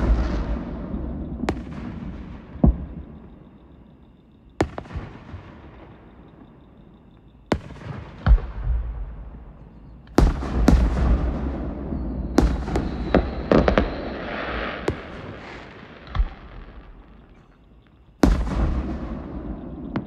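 Fireworks show: about a dozen sharp bangs of aerial shells bursting, spaced from under a second to a few seconds apart, each followed by an echoing tail, with a longer hissing spell about two-thirds of the way through.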